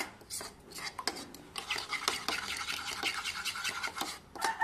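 Metal spoon beating raw eggs seasoned with salt and black pepper in a ceramic bowl: a quick, uneven run of clicks and scrapes against the bowl.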